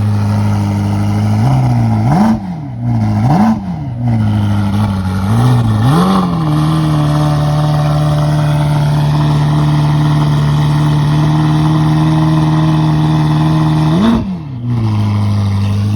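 2022 Mazda MX-5's 2.0-litre four-cylinder through a Friedrich Motorsport Group A cat-back exhaust, revved while standing: it idles, is blipped three times in quick succession, then held steady at raised revs for several seconds. Near the end it is blipped once more and drops back to idle. Loud, called brutal.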